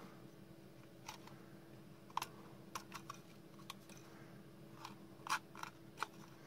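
Faint, irregular clicks and scrapes of a small hand tool picking at the silicone and plastic inside the base of a cheap LED bulb, where the silicone is not coming away.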